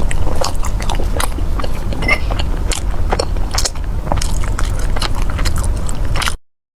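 Close-up crunchy biting and chewing of syrup-glazed fried pastry, with many irregular crackles over a steady low rumble. The sound cuts out suddenly about six seconds in.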